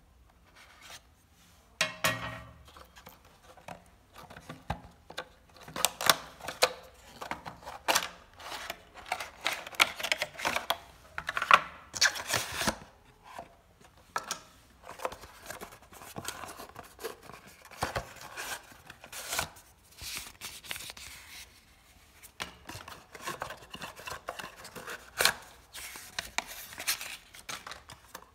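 Cardboard and plastic packaging being opened by hand: a blade slitting the clear plastic seal on a small box, then irregular rustling, scraping, tapping and crinkling as the cardboard box, paper insert and plastic tray are pulled apart.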